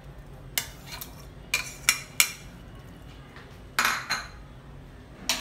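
A steel spoon clinking and scraping against a plate and a pressure cooker as raw minced mutton is scraped into the cooker: several sharp clinks, the loudest about two seconds in.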